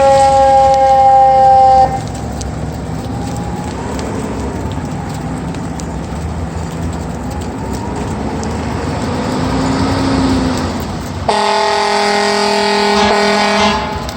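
A fire engine's train horn sounds twice. The first blast is a two-note chord, falling slightly in pitch, that cuts off about two seconds in. Near the end comes a louder, fuller chord that lasts about two and a half seconds. Between the blasts are engine and traffic noise and a faint wailing siren.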